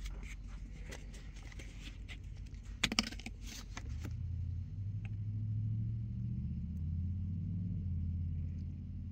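A plastic syrup bottle is handled with light clicks, and its flip-top cap snaps open with a few sharp clicks about three seconds in. From about four seconds on, a low steady hum is the loudest sound.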